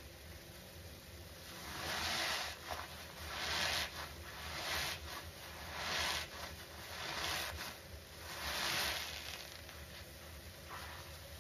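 Soap-soaked foam sponges and thick suds squeezed by gloved hands, wet squishing in about six swells, roughly one every second and a half, dying down near the end.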